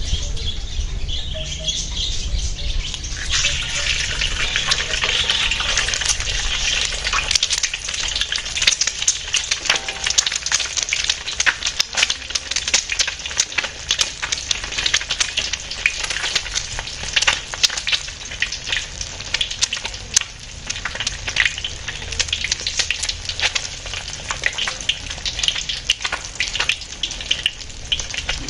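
An egg frying in hot oil in a wok: a dense sizzle full of sharp spattering crackles that starts about three seconds in, once the egg is in the oil.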